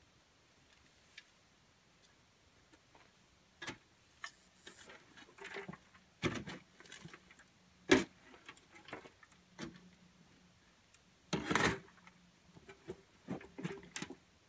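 Shovel scooping and scraping soil and tipping it into a wheelbarrow: a run of irregular scrapes and knocks, the sharpest about eight seconds in and a longer scraping about eleven seconds in.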